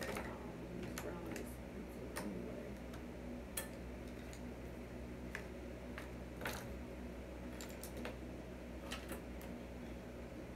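Scattered light clicks and taps, irregularly spaced about once a second, from a makeup brush and an eyeshadow palette being handled, over a low steady hum.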